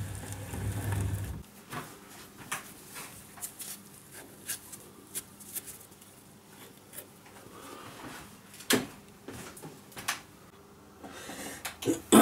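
Metal lathe's low hum stopping about a second and a half in, followed by scattered light clicks and knocks of hand work at the stopped machine: chips wiped off a freshly knurled part and tooling handled, with one louder knock near the end.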